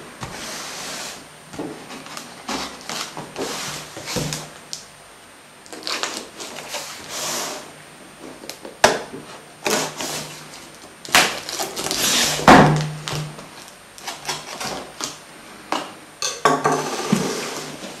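A knife slitting the packing tape on a cardboard shipping box: short hissing scrapes in bursts, with clicks and knocks as the box is handled and set down on a wooden table, the loudest knock about twelve seconds in.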